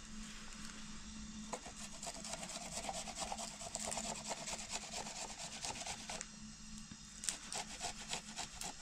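Quick, repeated scraping or rubbing strokes, like something being rasped or grated: a long run, a short pause, then a shorter run near the end.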